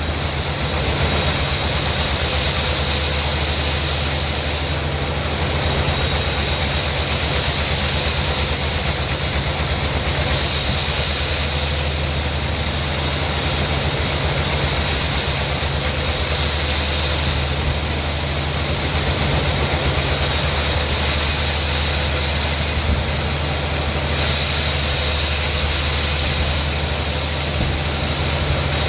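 Sawmill machinery running steadily: a constant low hum with a high-pitched whine that swells and eases every few seconds.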